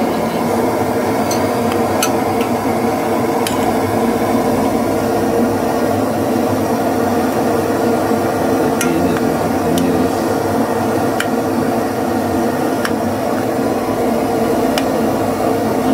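Pan of sweet-and-sour sauce with pineapple, onion and ginger boiling on a burner: a steady rushing noise with a few sharp clicks scattered through it.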